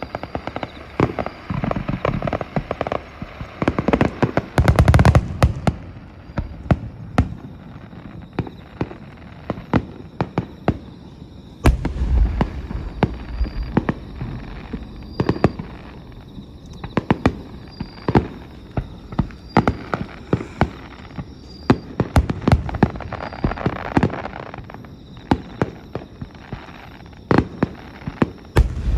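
Aerial fireworks going off in quick succession: many sharp bangs and crackling, with denser volleys and deep booms about four seconds in and again about twelve seconds in.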